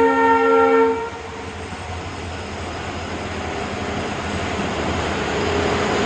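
Train horn sounding and cutting off about a second in, followed by a steady rushing noise that slowly grows louder.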